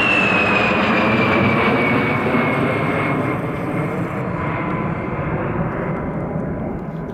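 A-10 Thunderbolt II's twin TF34 turbofan engines passing overhead: a whine falling in pitch over the first three seconds, then the jet noise slowly fading as the aircraft moves away.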